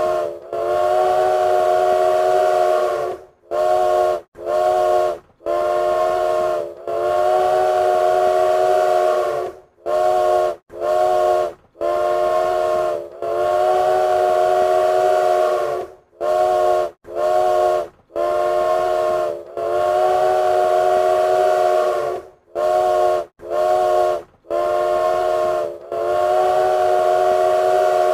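Train whistle sounding a chord of several notes, in a repeating pattern of long blasts of about three seconds, each followed by a few short toots.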